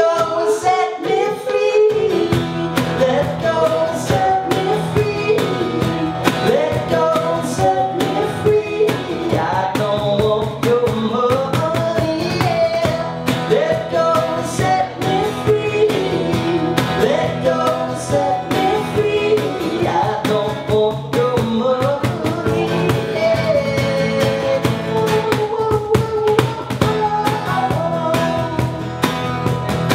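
Live acoustic duo: an acoustic guitar played under two male voices singing together in harmony. The guitar drops out briefly at the start and comes back in about two seconds in.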